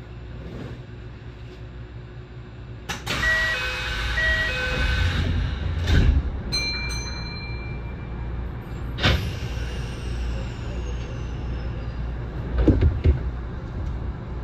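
Commuter train at a station stop: a two-tone door chime sounds twice about three seconds in, followed by a heavy thud of the sliding doors closing. After that come a sharp knock, a faint high whine falling in pitch and a few knocks as the train gets under way, over a steady low rumble.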